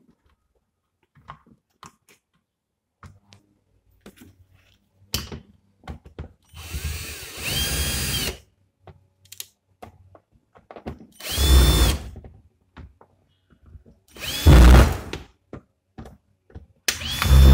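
Electric drill-driver running in several short bursts, each spinning up with a rising whine and then holding, as it drives the screws of a plastic extension-board case. Light handling clicks come before the first run.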